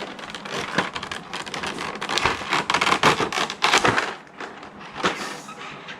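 Toy packaging being handled and opened: a rapid, irregular crackling and crinkling of plastic and cardboard. It is busiest for the first four seconds, then eases off to quieter handling.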